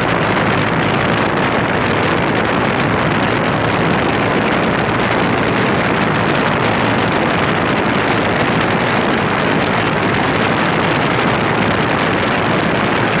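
Steady, loud rush of air from a running heat pump outdoor unit, with no distinct motor tone or rhythm.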